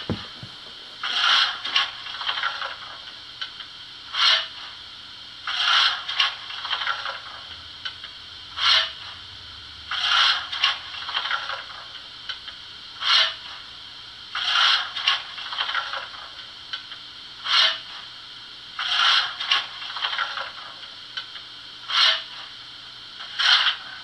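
Sound decoder of a Märklin BR 44 model steam locomotive, standing still, playing short steam-hiss puffs through its small loudspeaker. The puffs come in a repeating cycle, one puff then a quick group of three, about every four and a half seconds, over a faint steady hum.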